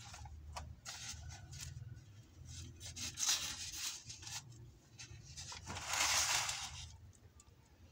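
Paper pages of a printed book rustling as a page is turned. The longest and loudest rustle comes a little before six seconds in, after a few shorter rustles.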